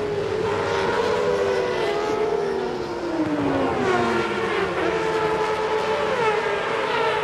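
Formula One car's engine, recorded onboard: its note falls steadily for about three seconds as the car slows, then climbs again in several short rising sweeps as it accelerates through the gears.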